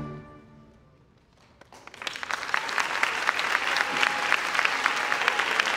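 A concert band's final chord cuts off and its ring fades away. After a moment of near quiet, audience applause starts about two seconds in, swells and holds as steady clapping.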